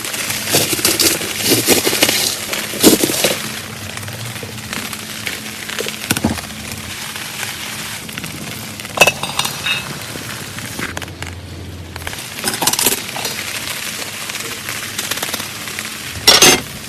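Steady rain hiss with scattered sharp clinks and crackles: a dense cluster in the first three seconds, then single knocks about nine seconds in, around thirteen seconds, and a loud one near the end.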